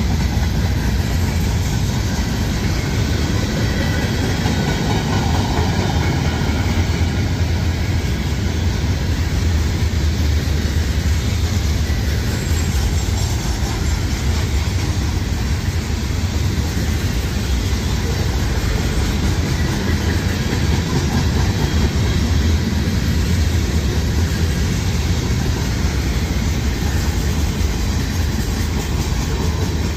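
CSX manifest freight train's cars rolling steadily past: a continuous deep rumble of steel wheels on the rails.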